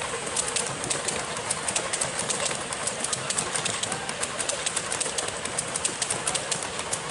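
Coaches of a 7¼-inch gauge miniature railway rolling past with a steady rolling hiss and many quick, uneven clicks from their wheels running over the rail joints.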